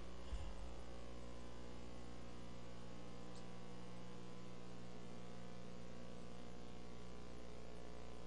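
Steady electrical mains hum from the church sound system, with a brief low thump about half a second in.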